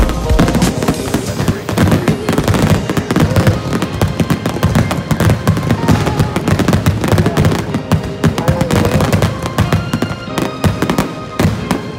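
Fireworks finale barrage: many aerial shells bursting in rapid, overlapping bangs, with music playing alongside.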